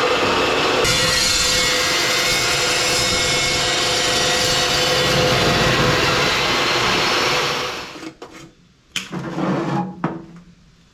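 Chop saw cutting steel: a loud, steady motor whine with a grinding rasp, which winds down about seven and a half seconds in. A few sharp knocks follow.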